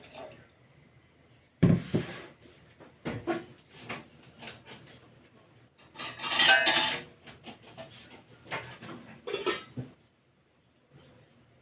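Kitchen handling sounds: a series of knocks and clinks of pots and dishes being moved, with a longer clattering noise about six seconds in.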